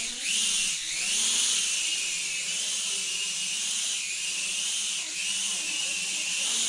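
MakeTheOne M2 (Mould King Super-F) mini quadcopter's motors and propellers whirring in flight: a steady high-pitched whine that wavers up and down in pitch.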